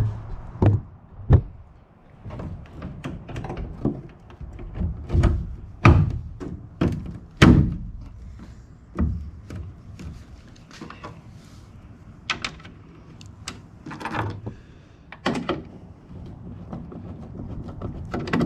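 Irregular knocks, clicks and thunks of a pickup truck's tail light housing being handled, seated on its pegs and screwed back in, with several louder thuds among them.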